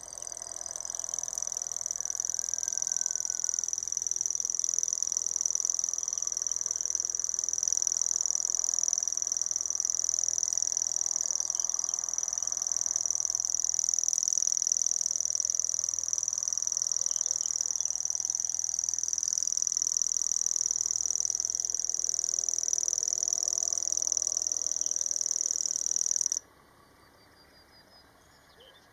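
House cricket (Acheta domesticus) singing: a steady, high-pitched stridulation that fades in at the start and stops abruptly near the end.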